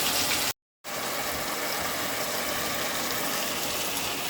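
Vegetables sizzling as they fry in a pan, a steady hiss. It cuts out about half a second in and comes back a little quieter.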